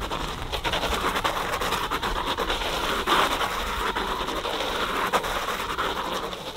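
Rear fat tyre of a Himiway Cruiser e-bike spinning and scrubbing on wet asphalt in a burnout: a loud gritty hiss with scattered crackles, starting abruptly and easing off near the end.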